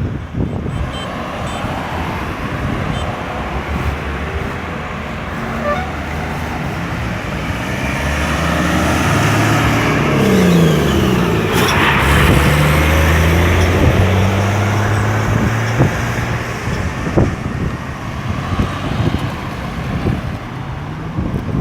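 Road traffic at a roundabout: cars and a heavy vehicle driving past. The engine pitch rises and falls, loudest about halfway through as the vehicle passes close.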